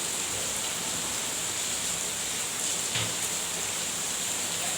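Heavy rain falling in a steady hiss, with a faint tap about three seconds in.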